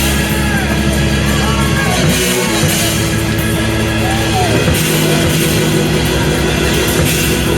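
Loud live band music with drums and sustained bass notes, and pitched lines sliding up and down over it.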